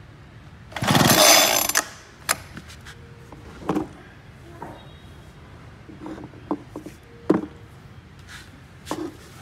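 Recoil starter cord of a Homelite two-stroke gasoline leaf blower pulled once, a rasping whirr of about a second; the engine does not catch. After it come a few scattered clicks and knocks of its plastic parts being handled.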